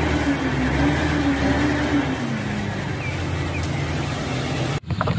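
Truck engine running steadily with a low hum, its pitch dropping slightly about two seconds in. It cuts off abruptly near the end.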